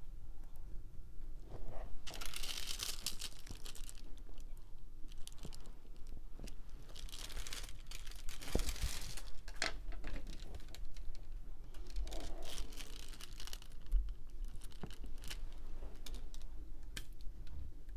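Clear plastic cover film on a diamond-painting canvas being peeled back from the sticky surface and crinkling, in several stretches of a second or two, with a few light clicks.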